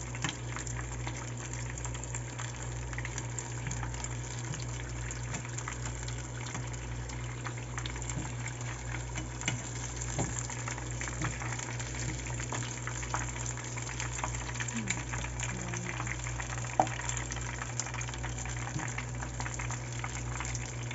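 Wonton-wrapped crab rangoons deep-frying in hot vegetable oil: a steady sizzle with many small pops and crackles, over a steady low hum. One sharper click about three-quarters of the way through.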